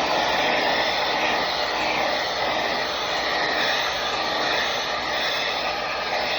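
Handheld hair dryer running steadily, a loud even rush of air with a faint steady hum underneath.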